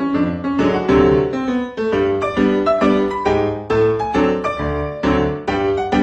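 Background piano music: a quick run of notes at a steady, even pace.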